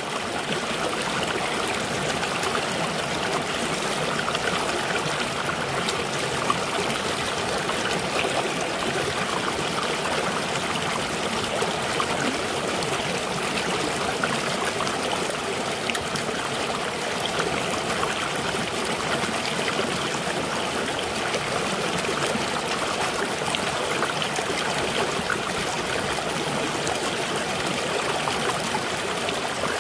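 Shallow mountain stream rushing and splashing over rocks and a small cascade, a steady wash of water noise with an occasional faint click.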